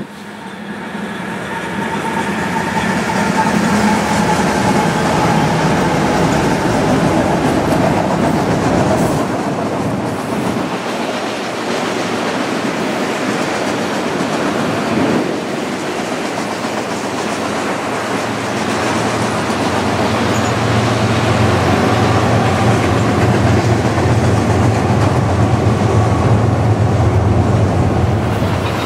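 Diesel-hauled freight train passing close by. It grows louder over the first few seconds, then the cars roll past with a steady clickety-clack of wheels over the rail, and a low steady hum comes in about two-thirds of the way through.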